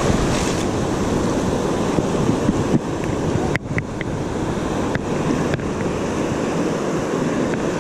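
Ocean surf washing and foaming in shallow water, with wind rumbling on the microphone.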